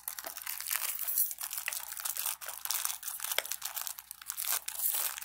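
Crinkly shiny wrapper of an L.O.L. Surprise toy crinkling and crackling in the fingers as it is squeezed and picked at to find where it opens, a continuous rustle of small crackles.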